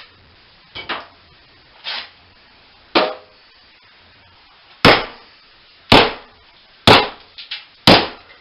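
Hammer blows against a wall during demolition. Lighter strikes come about once a second at first, then four much heavier blows about a second apart in the second half, one with a brief ring.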